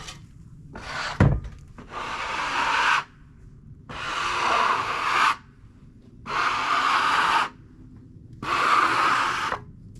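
A knock about a second in, then four long rubbing strokes across wood, each lasting about a second: sawdust being brushed off a freshly sawn maple board.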